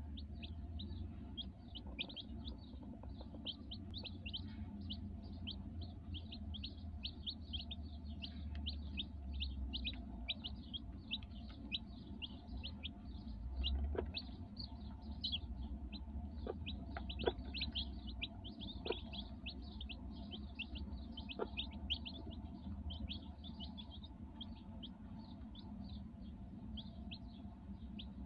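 Newly hatched chicks peeping continuously: rapid, short, high chirps that fall in pitch, several each second, with a few soft taps mixed in.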